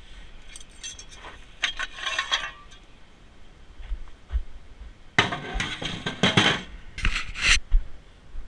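Metal tow-truck hardware clinking and clanking as it is handled. Light clinks come in the first couple of seconds, then two louder bursts of clattering about five and seven seconds in.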